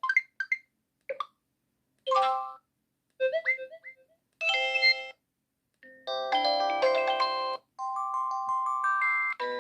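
Samsung SGH-T309 phone's built-in alert tones played one after another: a series of short electronic jingles and blips, each a few chiming notes, separated by silent pauses, the ones after about six seconds in being longer melodies.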